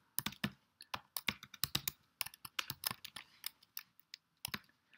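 Typing on a computer keyboard: an irregular run of key clicks, several a second.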